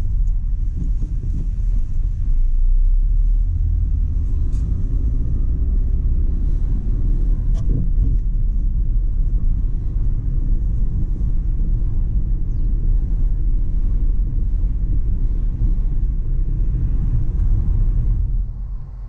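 Steady low rumble of a car being driven, with engine and road noise, briefly rising in pitch at times and dropping away near the end.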